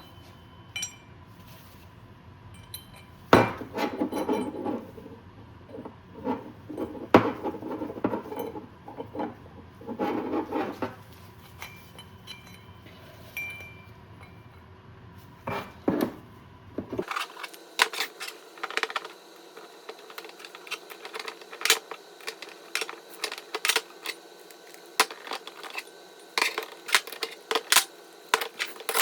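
Metal parts and tools clinking and knocking together in irregular sharp clicks and rattles, as small hardware is handled during a dirt-bike shock linkage rebuild. The clinks come thicker and faster in the second half.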